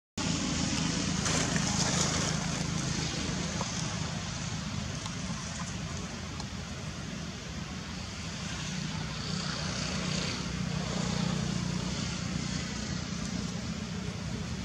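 Steady low droning rumble with an even hiss over it, a little louder in the first two seconds.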